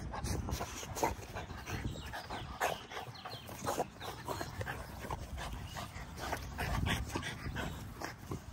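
American bully dogs and a puppy excitedly jumping up at a person, giving several short whines and yips, over the low rumble of their movement.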